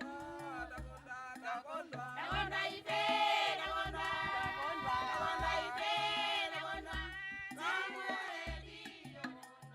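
Music with singing voices over a steady bass and percussion beat, growing quieter near the end.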